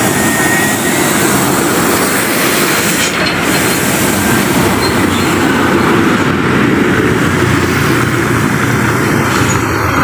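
Hino concrete mixer trucks driving close past, their diesel engines running with a loud, steady mechanical din.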